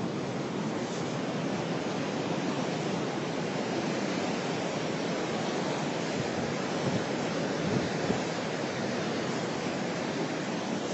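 Ocean surf washing onto a rocky shore: a steady rush of breaking waves, with some wind on the microphone.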